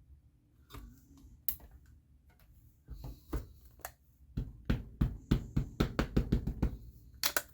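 Rubber stamp and ink pad worked on a craft table: scattered light taps, then a quick run of knocks, about three or four a second, in the second half as the stamp is dabbed with ink.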